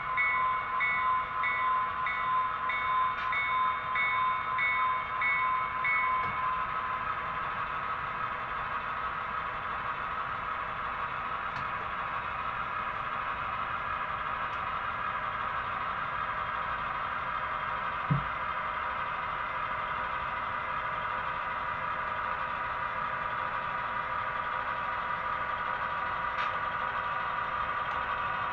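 Model diesel locomotive's sound system: the bell rings about twice a second for the first six seconds or so over a steady diesel engine drone, which runs on alone as the locomotive creeps along at slow switching speed. A single low thump sounds about two-thirds of the way through.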